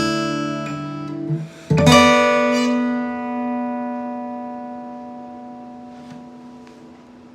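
Hans Bygone dreadnought acoustic guitar, with an Adirondack red spruce top, Indian rosewood back and sides and phosphor bronze strings, playing chords. A short pause comes about a second and a half in, then a final strummed chord rings out and slowly fades.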